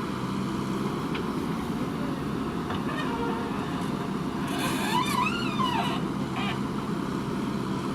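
Diesel engine of a JCB 3DX backhoe loader running steadily while it works. About five seconds in, a single pitched call rises and falls over it for about a second and a half.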